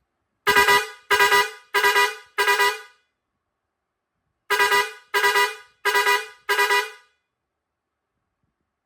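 Digital truck air horn with steel trumpet sounding two runs of four short blasts, each blast fading quickly, with a pause of about a second and a half between the runs.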